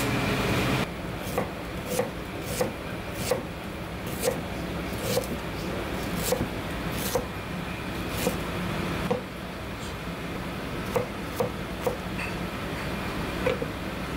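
Chef's knife slicing fresh ginger root on a cutting board: sharp knife taps on the board roughly every two-thirds of a second, pausing for a while and then a few more, over a steady low hum. A louder steady rumble cuts off about a second in.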